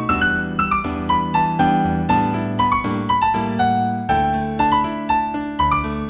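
App-composed New Age instrumental in D major on a piano sound: a melody of quick notes stepping downward in repeated runs over held low chords.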